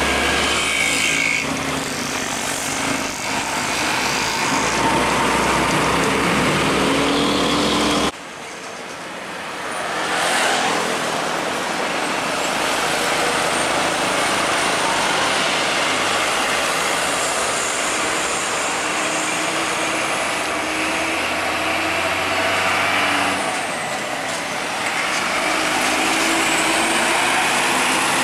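Heavy Hino diesel trucks passing close by on a busy road: engine and tyre noise with steady traffic behind. The sound drops suddenly about eight seconds in, then builds again as further trucks pass.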